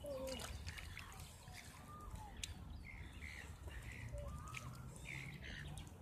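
Birds calling outdoors in many short chirps and brief whistled notes, scattered through, over a low steady rumble.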